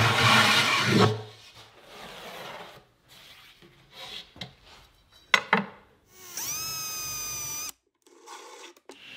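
Wood and a metal ball-bearing drawer slide rubbing and scraping as they are handled, with a sharp knock about five seconds in. Then a cordless drill/driver spins up with a rising whine, runs steadily for about a second and a half driving a screw into the slide, and cuts off suddenly.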